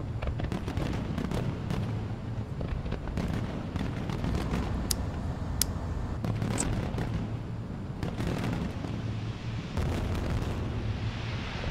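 Paper burning with small, irregular crackles over a low, steady rumble, turning hissier near the end.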